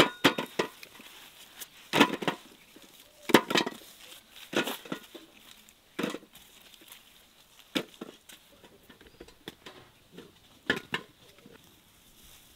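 An irregular series of sharp knocks and clatters, about one every second or two, weaker and sparser toward the end.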